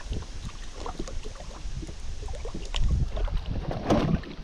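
Wind rumbling on the microphone and water lapping at a rowboat, with splashing about three and four seconds in as a hooked perch thrashes at the surface beside the boat.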